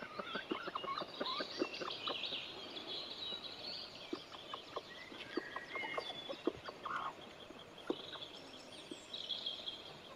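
Bantam hens clucking softly, with many short clicks and rustles throughout.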